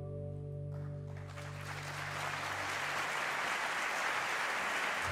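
A sustained chord from an amplified string instrument rings and fades out, while audience applause starts about a second in and swells.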